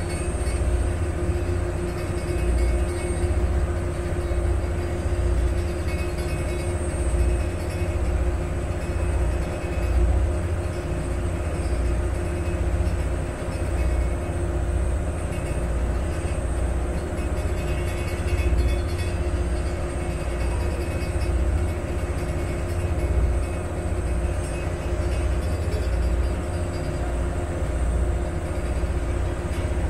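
A motorboat's engine running steadily, heard from aboard on open water, with an uneven low rumble beneath the drone.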